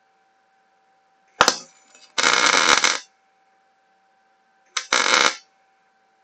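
Electric arc welding in two short tack welds, each a burst of crackling well under a second long that starts with a sharp click as the arc strikes, fixing the ends of the wire mesh to the steel frame.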